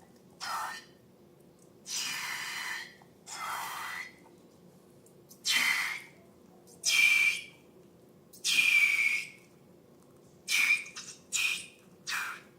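Slime being squeezed, pushing air out in about ten short hissing, whistly bursts.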